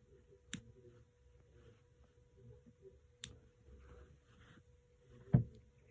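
Two sharp clicks of a nail clipper snipping a puppy's nails, about three seconds apart, then a louder dull thump near the end.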